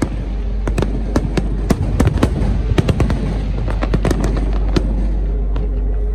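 Fireworks exploding in quick, irregular succession: sharp bangs about two or three a second over a continuous low rumble.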